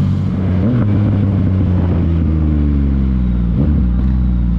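Sport motorcycle engine running under way; its pitch drops in the middle as the rider eases off, then holds steady.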